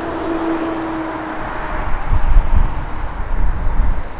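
Road traffic going by, with a faint steady hum in the first second and a half, then a louder, uneven low rumble from about two seconds in.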